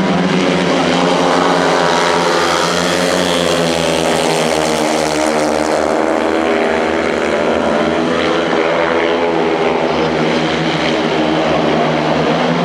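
Four 500 cc single-cylinder methanol speedway motorcycles racing together, a loud, continuous engine sound whose pitch falls and rises again as the riders throttle through the bends and along the straights.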